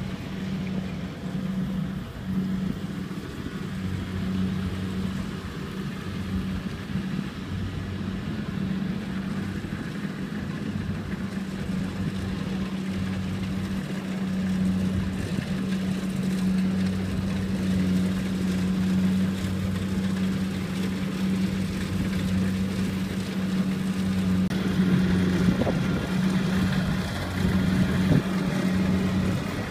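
Kubota rice combine harvester's diesel engine running steadily under harvesting load, a steady low hum that grows louder near the end as the machine comes closer.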